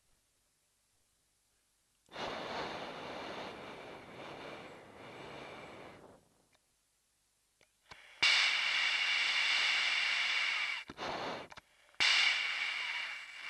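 Breathing through an MBU-12 oxygen mask: three long, noisy breaths, the second and third louder than the first.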